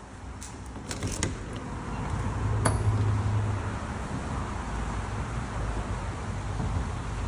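Metal lever handle and latch of a glass French patio door clicking a few times as the door is opened, with one more click about two and a half seconds in. After that a louder, steady rushing outdoor noise takes over.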